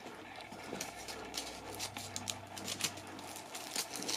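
Light, irregular crinkling and ticking of a foil Easter-egg wrapper being handled.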